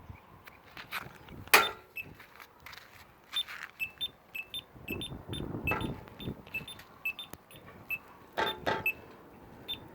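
Short high beeps from crosswalk push-button signals, repeating about twice a second, with a few sharp knocks in between, the loudest about a second and a half in and two close together near the end.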